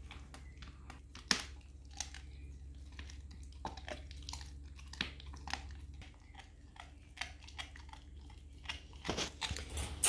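A Jack Russell terrier chewing and crunching possum meat: a quiet, irregular run of wet crunches and clicks. A low hum behind it stops about six seconds in, and louder rustling comes close by near the end.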